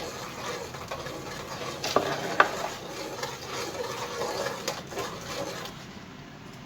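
A spoon stirring sugar into milk heating in a pot, a steady scraping with a couple of sharp clinks of the spoon against the pot about two seconds in.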